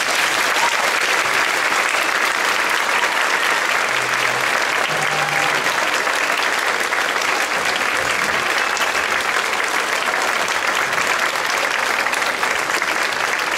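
Large audience applauding steadily, a dense and even clatter of many hands clapping.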